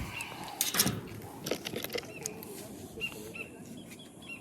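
A bird calling over and over with short, high chirps. A brief loud rustle of clicks comes a little under a second in, and fainter clicks follow soon after.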